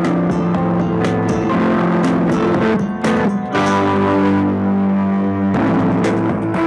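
Music playing loudly from a Mivi Fort S24 24 W soundbar, recorded by a lavalier mic held close to its grille; the sound is heavy in the bass.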